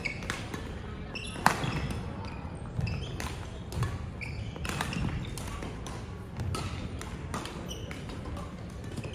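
Badminton play on a wooden sports-hall court: sharp racket strikes on the shuttlecock, many short shoe squeaks on the floor and footfalls, with the loudest strike about a second and a half in.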